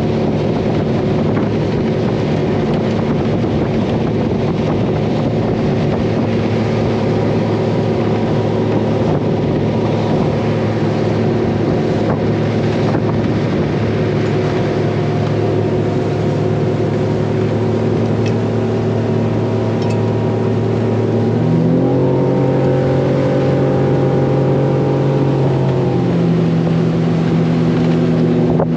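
Suzuki 300 V6 outboard running at a steady cruise with the boat on plane, a steady engine drone. About 21 seconds in its note steps up to a higher pitch as the throttle is advanced, then shifts again about five seconds later.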